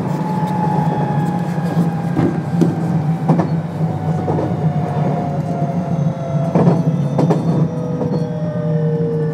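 Onboard running sound of a JR West 521 series EMU with a Toshiba IGBT-VVVF inverter: the traction motor whine falls slowly in pitch as the train slows on the approach to a station, over a steady rumble. Occasional rail-joint knocks.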